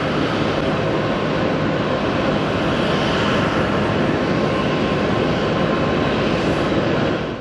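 Airbus A321neo (A321-272N) jet airliner climbing out after takeoff, its Pratt & Whitney PW1100G geared turbofans at climb power: a loud, steady jet rumble with a few faint steady tones running through it.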